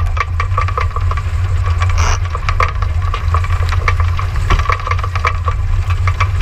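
Wind and water noise aboard a racing dinghy sailing hard in rough, gusty wind. A steady low rumble of wind on the microphone, with many quick clicks and rattles.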